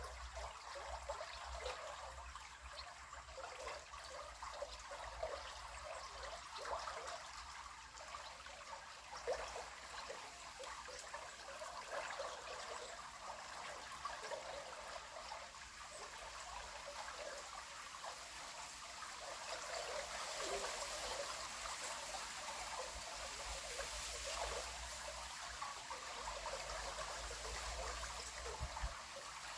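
A river trickling and babbling steadily over shallows, with dense small splashes and gurgles. A higher hiss swells about two-thirds of the way through.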